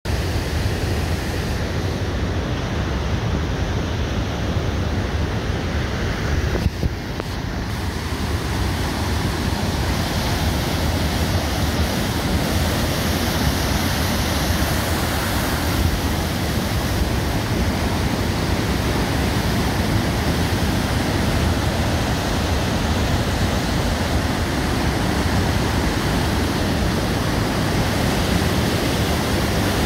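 Steady rushing of the River Feugh in flood, a torrent of white water pouring through the Falls of Feugh. It gets a little louder and hissier after about eight seconds.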